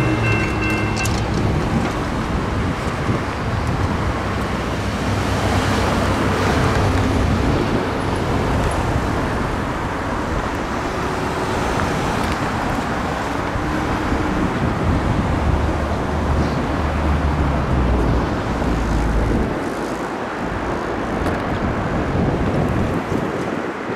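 Road traffic: cars and a pickup truck driving across the railroad crossing, their tyre and engine noise steady throughout. The electronic crossing bell stops about a second in, as the gates rise.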